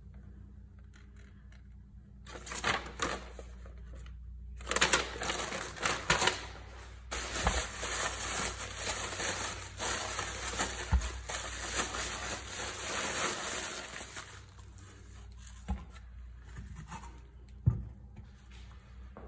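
Paper and plastic packaging crinkling and rustling as a new water pump's packing and instruction sheet are handled, with a few light knocks. The rustling dies down about fourteen seconds in.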